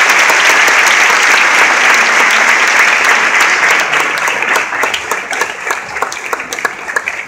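Audience applause, starting as a dense, loud clapping and thinning into scattered individual claps over the last few seconds.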